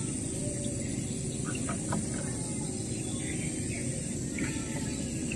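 Outdoor riverside ambience: a steady high insect drone and a low continuous rumble, with a few short, faint chirps like distant bird calls.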